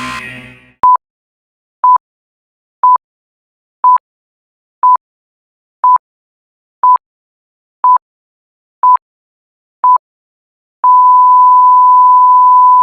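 Electronic sine-tone beeps at one pitch: ten short beeps a second apart, then one long held beep, like a countdown ending on a long tone.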